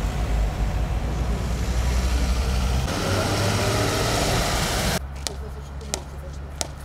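Steady road-traffic noise from passing vehicles for about five seconds, then a change to three sharp knocks about two-thirds of a second apart: a mallet tapping a concrete curb stone down into its bed.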